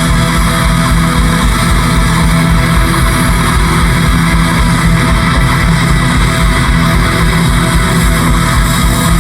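Rock band playing live at full volume: distorted electric guitar over bass and a steady, driving drum beat.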